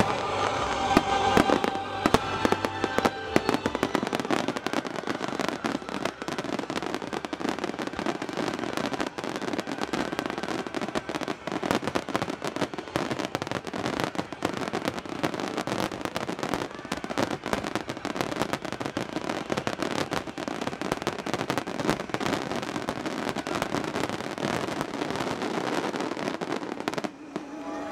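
A fireworks finale barrage: many aerial shells bursting at once, making a dense, continuous run of rapid pops and crackling that thins out near the end.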